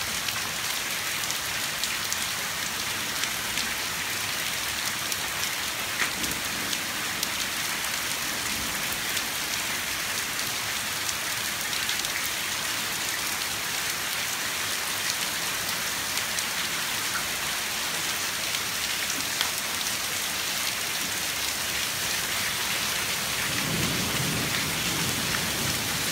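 Heavy thunderstorm rain mixed with small hail pelting brick pavers: a steady dense hiss with scattered sharp ticks of hailstones striking. A low rumble comes near the end.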